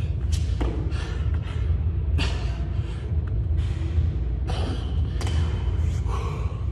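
Burpees on a gym floor: a few irregular thumps as hands and feet land, with hard, sharp breaths, over a steady low background hum.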